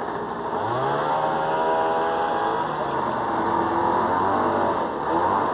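A vehicle engine speeding up about half a second in, holding its speed, then easing off and rising again near the end.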